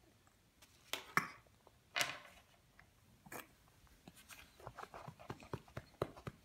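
A few sharp knocks, then a run of small quick clicks and taps, from a spoon and hands on a plastic high-chair tray.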